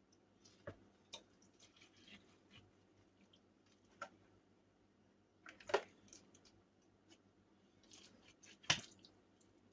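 Sticky seed-and-fat suet mixture being pressed and mashed into plastic suet cake holders: faint squishing and small clicks, with a few sharper clicks, the loudest about two-thirds in and near the end.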